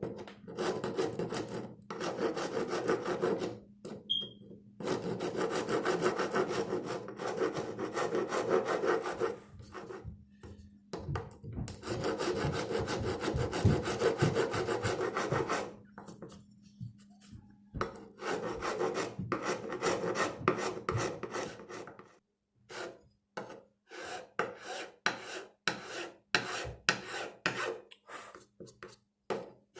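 Four-in-hand rasp filing a wooden axe handle to reshape it, in long runs of back-and-forth strokes with short pauses, turning into separate short strokes near the end.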